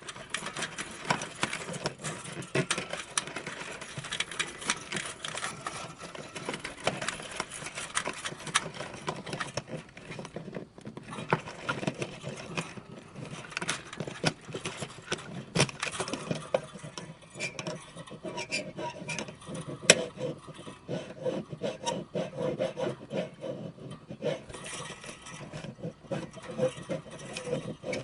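Screen door spring being abused, giving a continuous jangle of rattles, scrapes and sharp clicks. In the second half a low ringing tone from the coil hangs under the clatter, and one loud snap comes about twenty seconds in.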